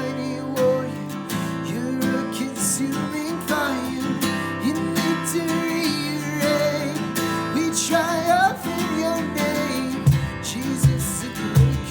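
Worship music led by a strummed acoustic guitar, playing steadily.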